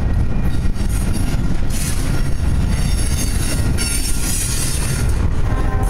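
Double-stack intermodal freight train's well cars rolling past close by: a heavy steady rumble of steel wheels on rail, with high-pitched wheel squeal coming and going.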